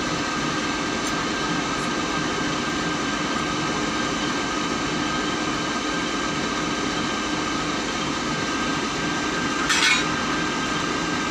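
TEP70BS diesel locomotive's 16-cylinder engine running at idle with a steady hum, standing at the head of the train. A brief sharp hiss about ten seconds in.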